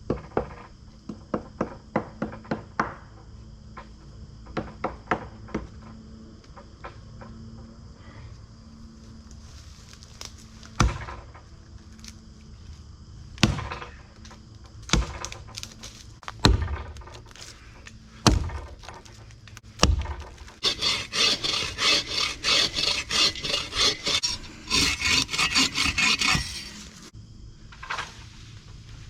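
Cutting a dead maple for firewood: first a quick run of sharp wooden knocks, then heavy axe chops a second or two apart. About two-thirds of the way through, a folding saw takes over with several seconds of fast, even rasping strokes through the wood.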